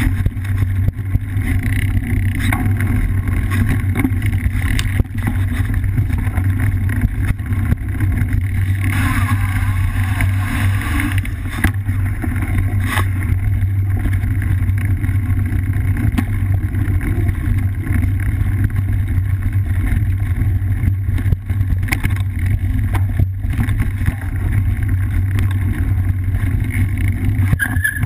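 Steady loud rumble and rattle of a cyclocross bike rolling over a dirt singletrack, picked up through a bike-mounted action camera: tyre and frame vibration with small knocks from the trail surface.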